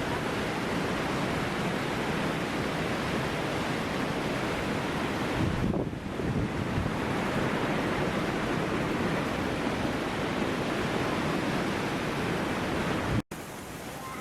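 Strong wind blowing hard across the microphone, a dense steady rushing noise with a low buffeting rumble about six seconds in. Near the end the sound cuts off abruptly and comes back much quieter.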